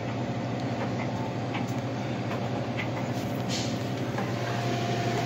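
Steady electric hum and fan noise from the refrigerator's condenser and evaporator fans running, with the compressor silent after its thermal protector tripped on a locked-rotor start. A few soft clicks of handling about two to three and a half seconds in.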